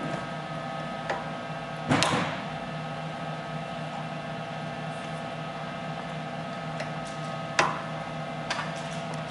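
Hughes Model 250B resistance welding power supply humming steadily with several fixed tones. Over the hum come sharp clicks and snaps from the hand-held weld head as spot welds are fired on fine wire: a louder crackling snap about two seconds in, another sharp snap past seven seconds, and a few small clicks.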